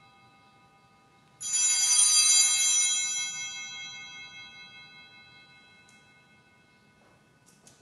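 Sanctus bells, a cluster of small altar bells, shaken once in a short bright jangle about a second and a half in, then ringing on and slowly dying away. This is the bell rung at the elevation of the chalice just after the consecration of the wine.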